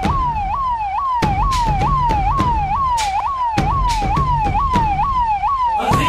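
Electronic siren from the rooftop loudspeaker of a Maruti Gypsy escort jeep, sounding a fast yelp: a tone that falls and jumps back up about twice a second. It plays over a low vehicle rumble.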